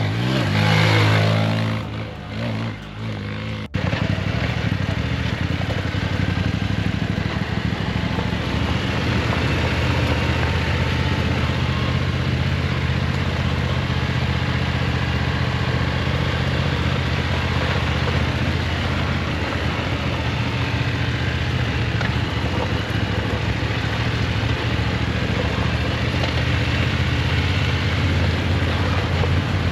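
Dirt bike engine revving up, loudest about a second in. After an abrupt change about four seconds in, a motorcycle engine runs steadily under a constant rush of noise.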